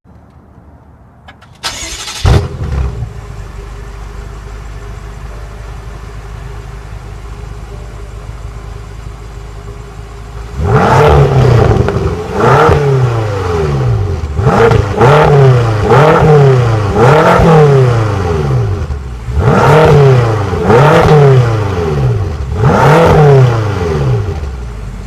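2015 BMW M6 Gran Coupe's twin-turbo V8 starting up about two seconds in with a loud flare, then idling. From about ten seconds in it is revved in a series of about eight throttle blips, each rising and falling in pitch.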